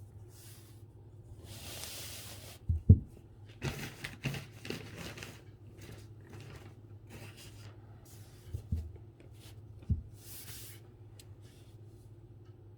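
Calligraphy brush and paper sounds: short rustling strokes and paper handling, with a few sharp knocks, the loudest about three seconds in, over a steady low hum.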